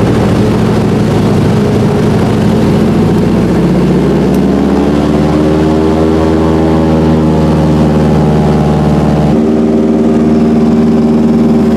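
Float plane's piston engine running loud and steady, heard from inside the cabin. Its note drifts slowly upward partway through, then shifts abruptly about nine seconds in, as the power setting is changed.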